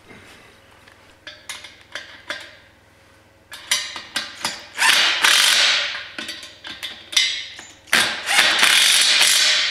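Cordless DeWalt impact driver running in bolts to fasten caster wheels onto the stand's legs: a few metal clicks of parts being positioned, then short bursts, then two longer runs of the driver's rapid rattle.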